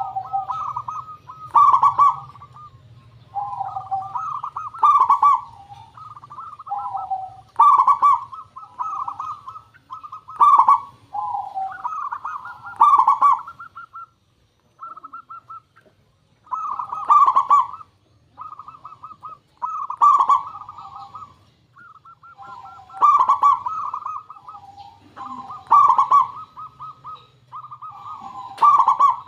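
Zebra dove (perkutut) singing: its trilling coo phrase repeated about every three seconds, each with a sharp, bright accented note, a brief pause near the middle.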